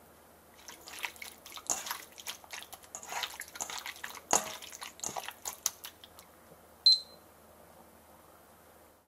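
Raw chicken thigh pieces squished and turned by hand in sesame oil in a stainless steel bowl, a run of irregular wet squelching sounds. About seven seconds in, a single short beep from a digital kitchen timer being started.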